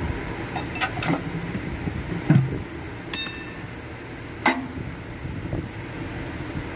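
Metal tools and engine parts clinking and knocking during an engine teardown: a handful of separate hits, one ringing briefly like struck steel, over a steady background hum.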